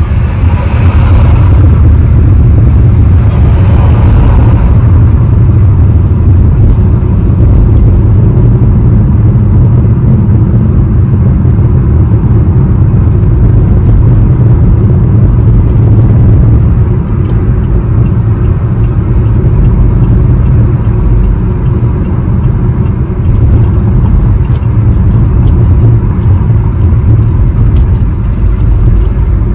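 Car driving on a highway, heard from inside the cabin: a steady low rumble of road and engine noise, with a brighter rush of noise in the first few seconds.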